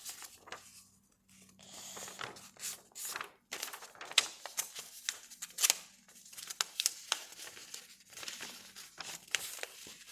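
A sheet of paper being folded by hand, its top corners folded down to the centre line: crinkling and rustling with many sharp crackles.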